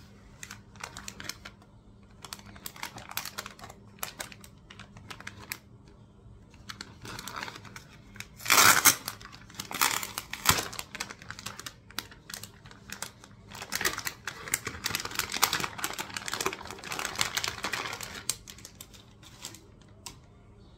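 Plastic packaging bags crinkling and rustling as they are handled and underwear is pulled out of them, in irregular bursts. The loudest crackle comes a little before halfway, with a longer stretch of rustling later on.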